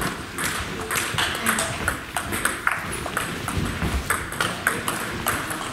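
Table tennis rally: the ball clicking sharply off the bats and bouncing on the table in quick, irregular succession.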